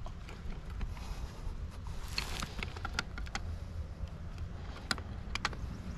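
A wrench turning a brass fitting on a water meter: a short scrape and a handful of sharp metal clicks as it is tightened, over a steady low rumble.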